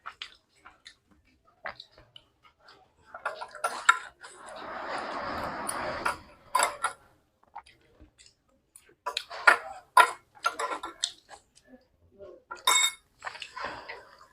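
Close-up eating sounds: scattered clicks and taps of fingers and food against a plate, with chewing and a rustling stretch of about two seconds in the middle.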